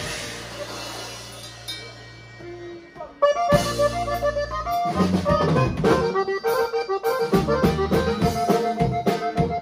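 Live conjunto band led by a button accordion, with electric bass, acoustic guitar and drum kit. A held chord dies away over the first three seconds. Then the accordion breaks in loudly with a quick run about three seconds in, and the drums and bass join with a steady beat about two seconds later.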